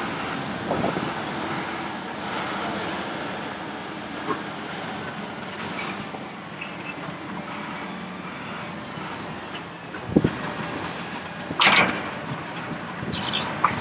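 Hitachi ZX870 excavator's diesel engine running steadily under load as it swings and digs. Near the end there is a thump, then a loud crash and rattle as the bucket dumps earth and rock into a 40-tonne articulated dump truck's body.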